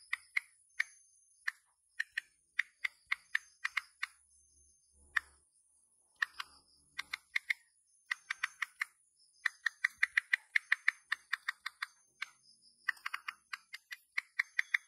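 iPhone on-screen keyboard clicks, one short click for each key tapped while a text message is typed, coming in quick irregular runs broken by short pauses.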